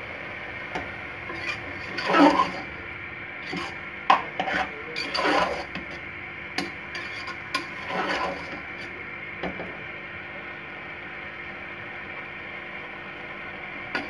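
A metal spoon scraping and stirring soft cooked grated carrots in an aluminium pressure-cooker pot, in irregular strokes with an occasional clink against the metal, over a steady low hiss. The carrots are being stirred while the last of the cooking water dries off.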